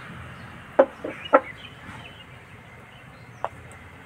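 A hen clucking: three short, loud clucks about a second in, and one more near the end.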